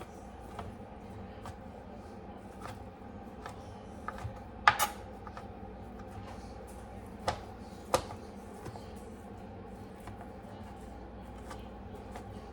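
Knife and cutting board while cutting up baked chicken: scattered light clicks and taps, with a few sharper knocks about halfway through and two more a little later.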